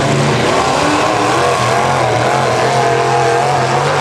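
Demolition derby vehicles' engines running loudly in a dirt arena, their pitch wavering up and down as the drivers rev them while manoeuvring and ramming.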